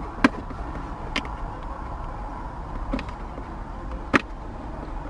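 A few sharp clicks, about a second or two apart, of interior trim and controls in a 2023 Porsche 911 Turbo S Convertible's cabin being pressed and handled, over a steady low hum.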